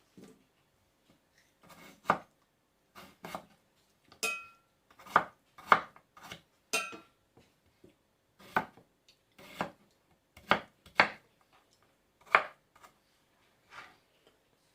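Knife chopping on a cutting board: irregular sharp chops about one a second, a couple of them with a brief ringing clink.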